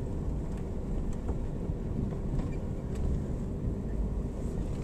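Steady low rumble of an EMS car's engine and tyres on the road, heard from inside the cabin, with a faint steady hum.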